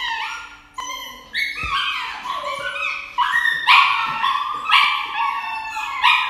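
A puppy yelping and crying in distress as it is held down for an injection. Its cries fall in pitch, repeat about twice a second, and grow louder after the first second or so.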